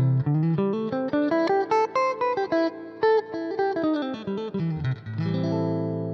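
Electric guitar through a Roland Blues Cube Hot amplifier on its clean sound, with the EQ flat and the amp's own reverb on: a quick run of single notes, then a chord struck about five seconds in and left ringing.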